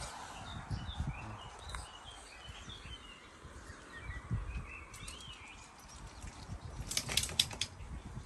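Small bird giving short, high chirping calls, several in the first half. Near the end comes a quick run of sharp clicks, the loudest sounds here.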